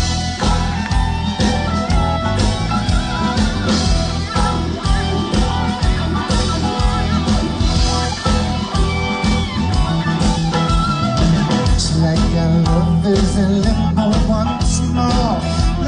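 Rock band playing an instrumental passage: electric guitar over bass and drums with a steady beat.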